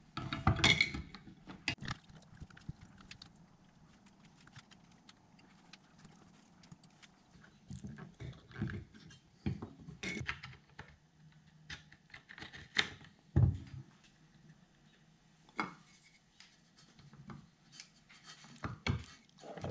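Plastic taillight and turn-signal parts and hand tools handled on a wooden workbench: scattered clicks, taps and knocks, with a heavier thump about thirteen seconds in.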